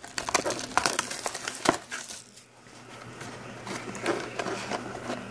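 Plastic shrink wrap crinkling and a cardboard trading-card box being handled as it is unwrapped and opened. Scattered small clicks and taps run through it, with one sharper tap a little under two seconds in and a quieter stretch in the middle.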